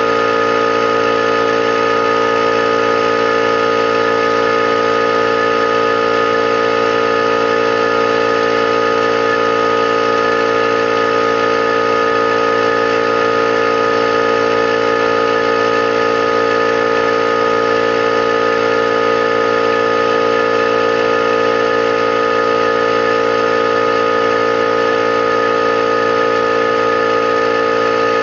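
Electric 21-gallon air compressor running steadily, its pump building tank pressure, with an unchanging hum and whine.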